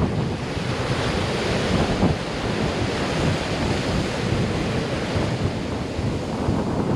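Wind buffeting the microphone over the steady wash of ocean surf, a continuous rushing noise heaviest in the low rumble.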